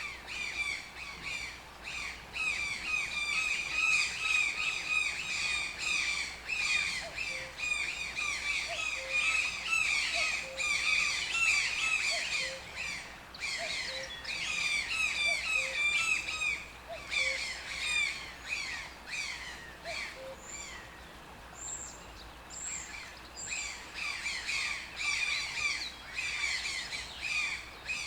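A toucan calling, a long run of rapid, harsh, squawky notes repeated several times a second, with a lull a little after the middle. Another bird gives a few short high whistles during the lull.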